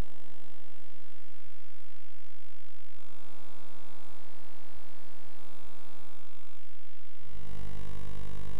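Electronic soundtrack: a sustained synthesizer drone of many steady tones that shifts slightly about three seconds in and again near seven seconds, then a louder electronic track with heavy bass comes in about seven seconds in.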